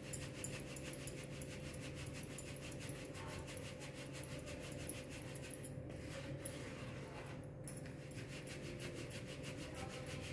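Damp ground rice flour being sifted through a hand sieve: a soft, fast, even rhythm of rasping shakes, several a second.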